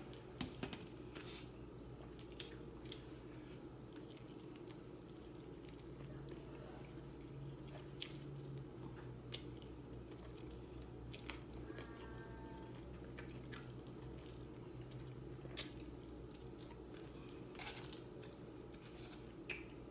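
Faint close-up eating sounds: scattered clicks and small cracks of crab legs being broken open and bitten, with wet chewing and sucking, over a steady low hum.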